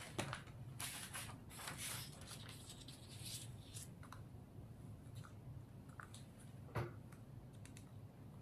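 Faint rustling and small clicks of objects being handled on a tabletop, busiest in the first few seconds, with one sharper click late on.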